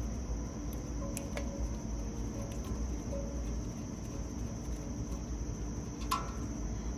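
Steady high-pitched chirring of insects outdoors, with a few short sharp clicks about a second in and near six seconds in as the fan blade hub on the condenser fan motor is handled.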